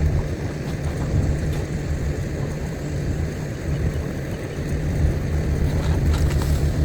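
A car running, heard from inside the cabin: a steady low rumble of engine and road noise, with a few faint ticks.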